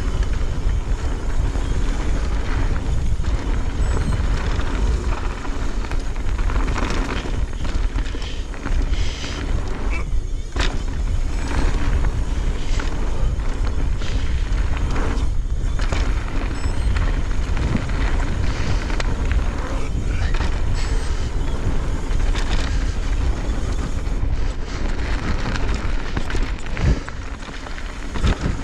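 Pivot Firebird full-suspension mountain bike riding down a dirt trail: steady wind rumble on the microphone with continual rattling and clatter of tyres, chain and suspension over rough ground.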